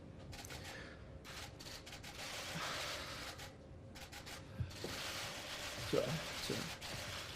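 A man's unsteady breathing and a few short, faint choked voice sounds as he fights back tears, over a steady hiss with scattered clicks.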